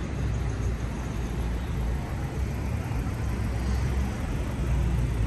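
Street ambience with a steady low rumble of road traffic.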